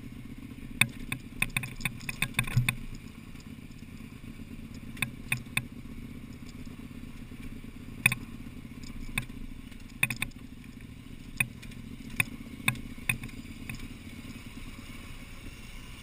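KTM adventure bike's V-twin engine running low and steady while riding over a loose rocky trail, with sharp clacks and knocks from stones and the bike jolting over rocks: a quick run of them in the first three seconds, then about one a second.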